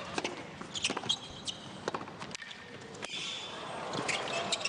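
Tennis ball struck by rackets and bouncing on a hard court during a serve and baseline rally: sharp pops every second or so, with short squeaks of shoes on the court.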